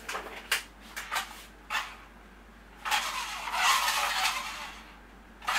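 Small toy RC stunt car's electric drive motors whirring in a few short bursts, then a longer run of about two seconds, as the car is driven by remote control across a wooden floor.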